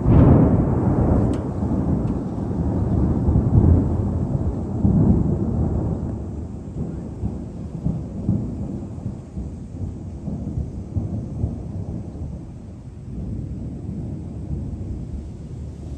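Thunder: a sudden loud crack that rolls on as a long, low rumble, swelling again a few seconds in and then slowly dying away.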